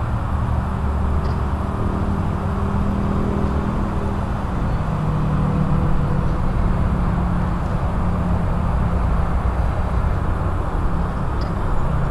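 Road traffic: cars passing on a busy road, a steady rush of tyres and engines. A close engine hum drops a little in pitch about four seconds in.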